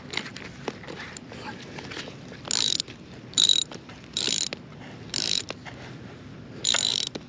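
Farm jack being pumped to tension a chain: about five short ratcheting bursts, roughly one a second, each a clatter of the pawls catching as the handle is worked. They start a couple of seconds in, after some light clicking.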